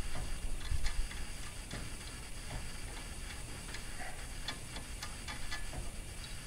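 Light, irregular metallic clicks and taps of an ultralight's aluminium tube strut and its fastener being fitted together by hand.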